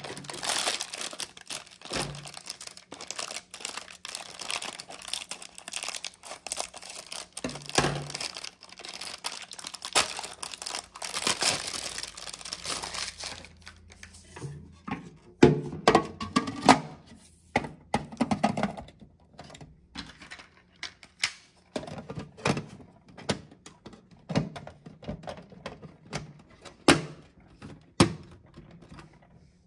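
Crinkling of a Brita pitcher filter's printed wrapper as it is opened and handled. About halfway through this gives way to a series of separate plastic knocks and clicks as the filter cartridge, reservoir and lid are handled and pressed together.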